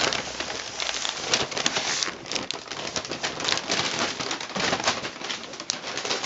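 Paper and clear plastic packaging rustling and crinkling as it is handled, a continuous irregular crackle with sharper crinkles throughout.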